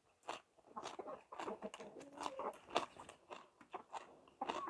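Close-up eating sounds: a man chewing and biting on a mouthful of green papaya salad and rice noodles eaten by hand, with crunches coming three or four times a second.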